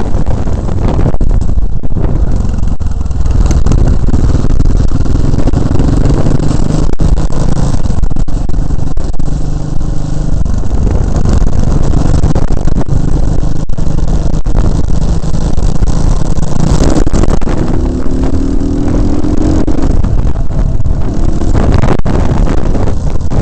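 A loud motor vehicle engine running, its pitch climbing as it accelerates about 17 seconds in and again near the end.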